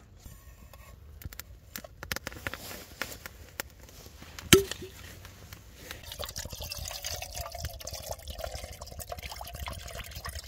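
Water poured into a small camping cooking pot for about four seconds, starting about six seconds in. Before it come light clicks of handling gear and, about four and a half seconds in, a single sharp metallic clank of cookware that rings briefly.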